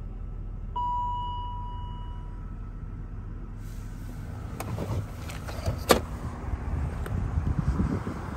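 Inside the cabin of a 2003 BMW 530i, its straight-six engine idling as a low steady hum, with a single chime tone about a second in that fades away. About halfway through the sound opens up, as when the door is opened. Then come several clicks and one sharp knock, followed by rustling and wind on the microphone.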